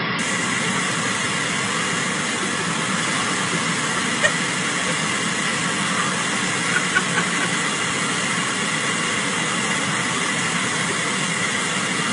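Car air conditioning blowing hard from the dashboard vent: a steady rushing hiss of air, with a few faint ticks near the middle.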